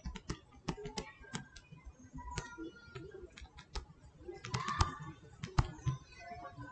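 Irregular light clicks and taps of a stylus writing on a tablet screen, busiest about two-thirds of the way through.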